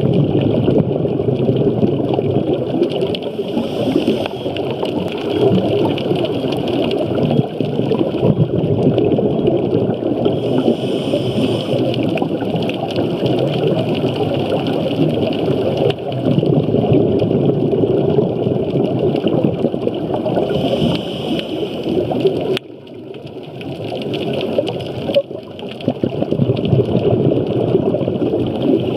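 Underwater sound on a diver's camera: a constant rushing rumble of scuba exhaust bubbles and water, with a brief hiss from the regulator every several seconds. About three quarters of the way through it drops off suddenly for a few seconds, then builds back up.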